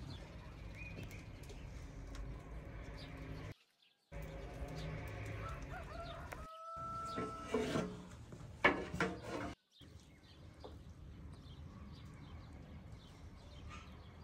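Farmyard fowl calling and clucking, with one held call about seven seconds in and a few sharp louder calls just after, over small birds chirping. The sound drops out briefly three times.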